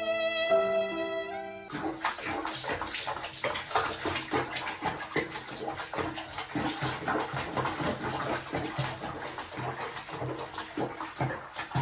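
Held musical notes, then from about two seconds in, water sloshing and splashing in a small bath basin holding a cat, with music underneath.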